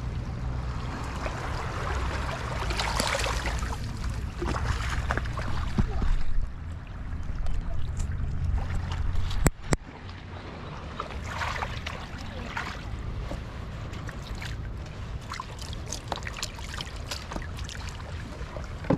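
Wind noise on the microphone over shallow seawater sloshing and splashing around the feet, with a single sharp click about halfway through.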